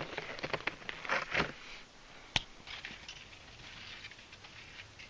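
Footsteps crunching in snow: louder crunches in the first second and a half, then fainter as they go on. A single sharp click comes about two and a half seconds in.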